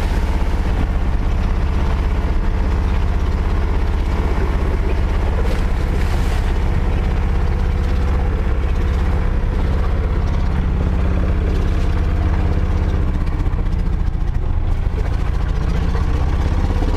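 A boat's engine running steadily: a loud, even low drone that holds the same pitch throughout.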